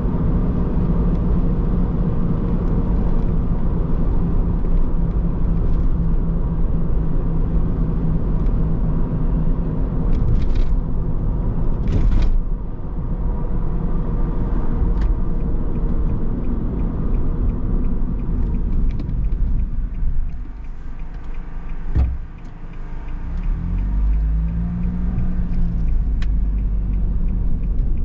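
Car engine and road noise while driving, with a steady low hum. About twenty seconds in, the engine note and level drop as the car slows, then the pitch rises again as it pulls away.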